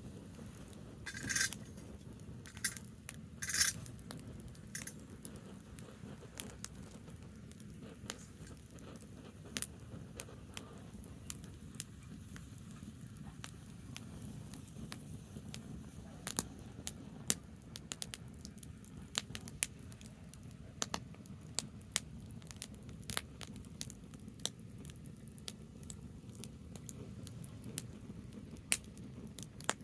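Branch fire crackling, with sharp pops scattered throughout and two brief hisses in the first few seconds, over a steady low rumble.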